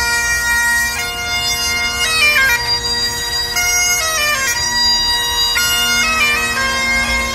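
Bagpipes playing a melody over steady, unbroken drones.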